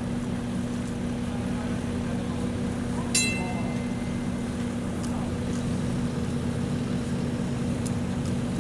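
Steady street hum from a TTC streetcar and traffic, with a constant low tone under it. About three seconds in there is one sharp metallic clang that rings briefly.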